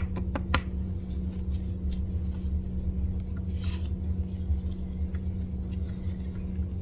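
Steady low background rumble with a constant hum. There are a few light clicks about half a second in and a brief soft hiss near the middle.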